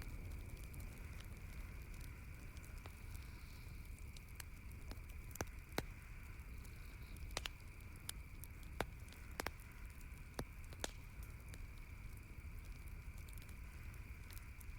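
Wood campfire crackling: irregular sharp pops and snaps, a handful louder in the middle, over a steady low rumble and a faint high steady hiss.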